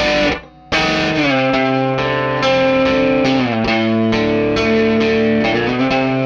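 Electric guitar played hard through a Dusky D₂O vacuum-tube amplifier, strummed chords ringing with the amp pushed into overdrive. There is a brief gap in the first second, then the chords sustain without a break.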